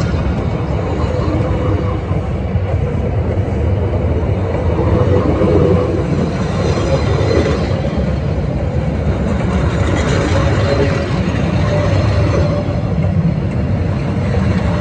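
Train carriages rolling directly over the track: a loud, steady rumble of steel wheels on the rails, with a faint thin wheel squeal coming and going.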